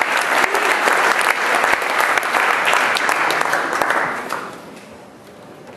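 Audience applauding: dense clapping that dies away about four seconds in.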